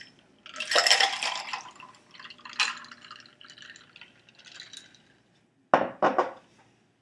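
Liquid being poured and splashing in a glass amid clinks of glassware, followed near the end by two sharp knocks about half a second apart.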